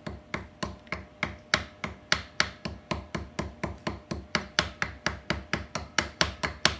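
A small hammer tapping on metal in a steady rhythm, about four sharp knocks a second, evenly repeated.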